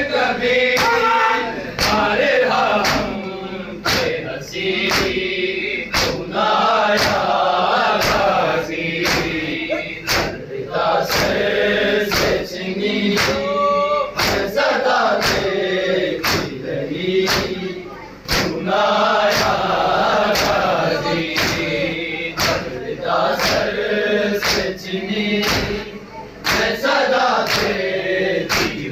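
Men chanting a noha lament together in unison, over a steady beat of hands striking chests in matam.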